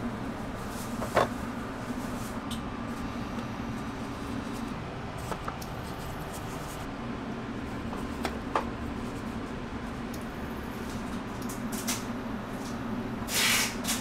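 Handling sounds of jam-filled donuts being filled, set on a metal wire rack and weighed: a few light clicks and taps over a steady low hum of kitchen equipment, with a short hissing burst near the end.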